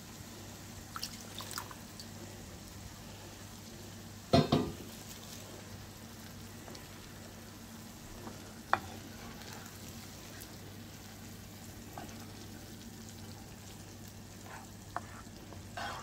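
Tomato sauce frying faintly in a pan of butter-softened onion and garlic while a wooden spoon stirs it. A few short knocks and scrapes of the spoon against the pan come through; the loudest is about four seconds in.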